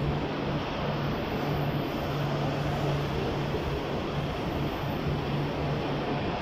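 Double-decker passenger coaches rolling past along a platform as the train pulls in, a steady running noise with a low hum that drops out briefly a few times.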